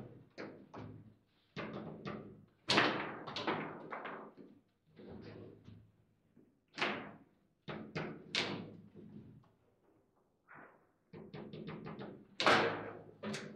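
Table football play: the ball cracking off the players' figures and the table walls, with rods banging against their stops. It comes as an irregular series of sharp knocks and clacks with short ringing tails. The hardest hits fall about 3, 7 and 8.5 seconds in and just before the end.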